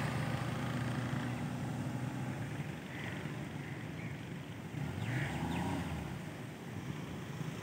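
Small hatchback's engine running as the car drives slowly away, its low hum fading after a couple of seconds.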